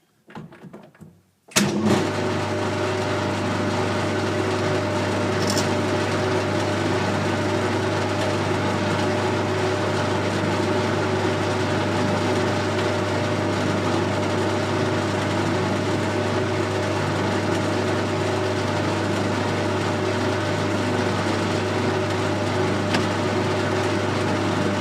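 Colchester Student lathe switched on with a click about a second and a half in, then running steadily with a low hum while it takes a screw-cutting pass on an internal ACME thread.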